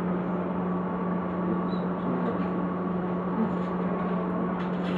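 Steady low hum of a stationary electric commuter train waiting to depart, heard from inside the car, with a faint steady whine over it. A brief rise in noise comes near the end.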